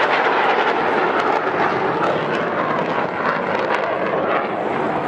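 Airplane flying overhead, its engine noise a steady rushing sound that slowly fades toward the end.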